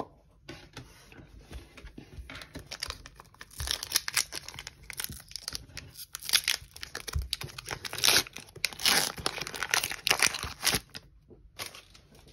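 Foil Pokémon booster pack wrapper being torn open and crinkled by hand, a long run of irregular rips and rustles.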